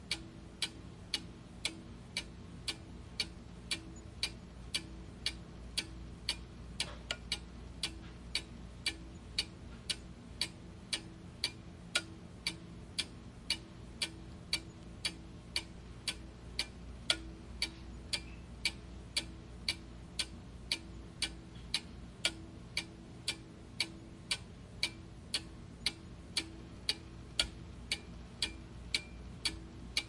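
Clock ticking: a steady, even run of sharp ticks, a little under two a second, over a faint low hum.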